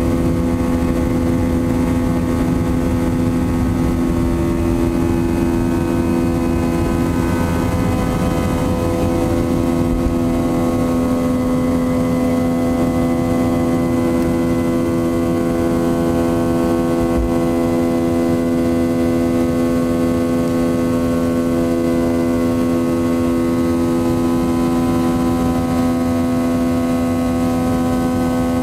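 Boeing 737 CFM56 turbofan engine at takeoff thrust, heard from the cabin over the wing: a loud, steady chord of droning fan tones over the rumble of the takeoff roll. The runway rumble eases in the second half as the wheels leave the ground and the jet climbs away.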